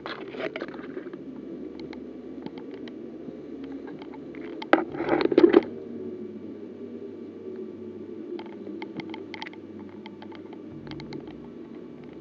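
Footsteps and rustling of brush and dry twigs as an airsoft player moves through the field: scattered crackling clicks over a steady low rumble, with a louder burst of rustling about five seconds in.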